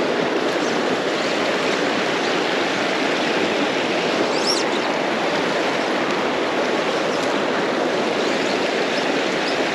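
A shallow mountain river rushing steadily over rocks in a fast riffle.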